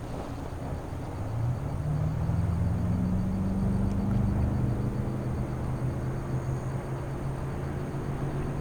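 A distant engine drones steadily, growing louder from about a second in and then holding.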